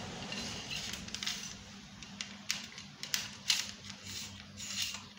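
Scattered clicks, taps and rustles of a plastic LED tube light and its wire being handled, with a faint steady hum underneath.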